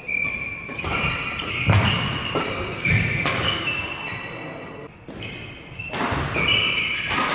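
Badminton rally: a series of sharp racket strikes on the shuttlecock, about one a second, the loudest about a second and a half in, with short high squeaks of court shoes on the sports floor between them.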